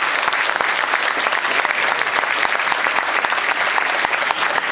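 Audience applauding: a dense, steady stream of hand claps.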